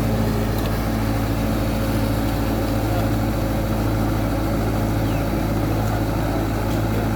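Tractor engine running steadily at an even, low pitch.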